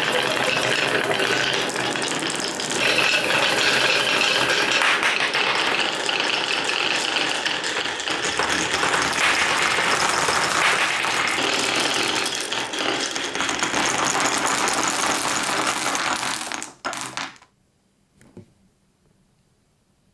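Many glass marbles rolling and clattering down wooden marble-run tracks and clicking against one another, a dense continuous rattle. It cuts off suddenly about seventeen seconds in, with one last faint click a second later.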